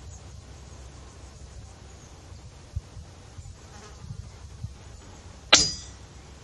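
A faint steady background of buzzing insects with a few soft knocks. About five and a half seconds in comes a single sharp crack from a PCP air rifle shot, fitted with a carbon-fibre moderator, with a brief ringing tail.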